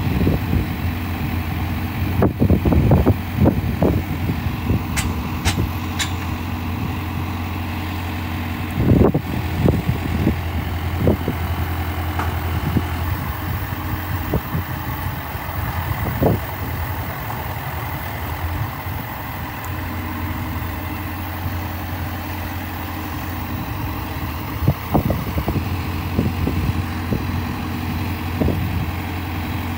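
The diesel engine of a high-clearance self-propelled crop sprayer idling steadily, with a few short low thumps over it.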